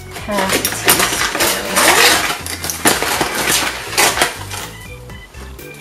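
Metal measuring spoons clinking repeatedly as sugar is measured out, with the crinkling of a paper sugar bag being folded shut.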